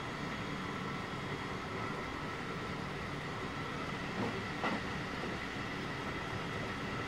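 Onboard running noise of a JR West 223 series 2000-subseries electric train (Toshiba IGBT inverter) at speed: a steady rumble of wheels on rail with a couple of steady tones. A brief sound sweeps up and down in pitch about four and a half seconds in.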